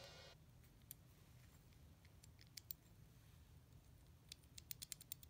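Faint clicks and ticks of fingers handling and turning a KTM 690 roller rocker arm, over a low steady hum; a quick run of ticks comes near the end.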